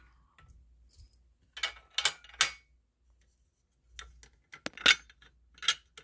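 Sharp plastic-and-metal clacks from a fire alarm pull station being handled, a cluster of them about two seconds in and a few more near the end.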